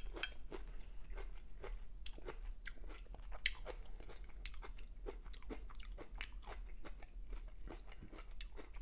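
A person chewing a mouthful of chicken curry with rice and vegetables close to the microphone: many small irregular wet clicks and smacks of the mouth, a few a second.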